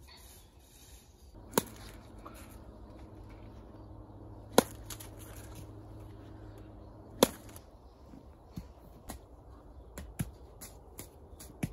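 Apples being struck hard, three loud sharp thwacks a few seconds apart, followed by several lighter knocks. A low steady hum runs under the first three hits.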